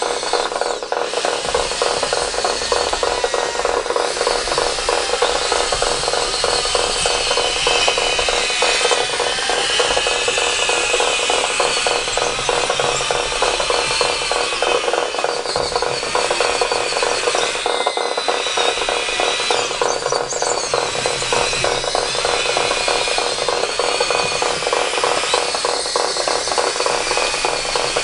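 Radio-controlled scale construction machines at work, their tracks and geared motors making a fast continuous rattle with a steady hum and a higher whine that wavers in pitch.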